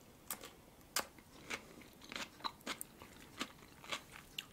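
Close-miked crunching of a fresh cucumber slice being bitten and chewed: a string of short, crisp crunches, about two a second.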